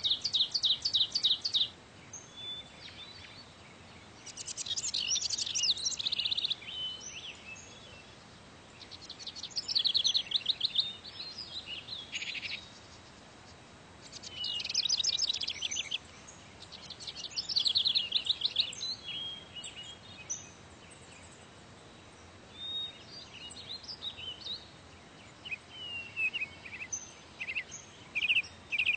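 Small songbirds singing: runs of rapid high notes a second or two long, repeating every few seconds, then scattered shorter chirps toward the end.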